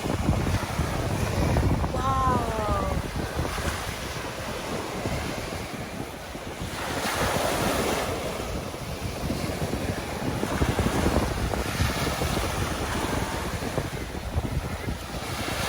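Surf breaking and washing up the beach, with heavy wind noise on the microphone. The wash swells about seven seconds in and again near twelve seconds. A short call falling in pitch comes about two seconds in.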